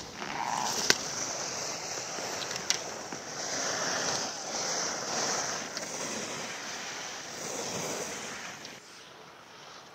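Racing skis carving on hard-packed snow: a hissing scrape that swells with each turn, with two sharp clacks in the first three seconds. The scraping fades near the end as the skier moves away.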